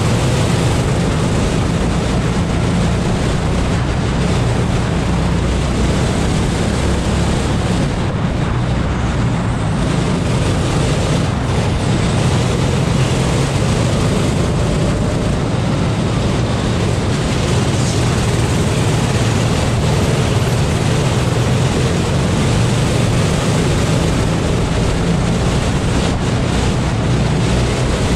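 Kart engine running at racing speed, heard onboard, with wind noise buffeting the microphone.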